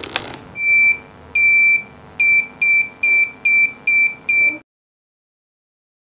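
Powerpack vacuum sealer heat-sealing a foil pouch: a click as the lid is pressed shut, then a high steady electronic beep twice, the second longer, followed by six short quick beeps. The sound cuts off suddenly partway through.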